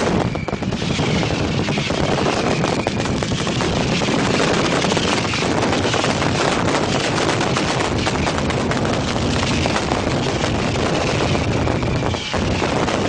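A barrage of fireworks going off at ground level: a loud, continuous rapid-fire crackle of bangs and reports, with occasional high whistles.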